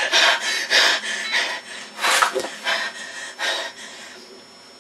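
A boy's heavy, agitated breathing, a run of short noisy breaths and snorts that grow quieter and fade out near the end.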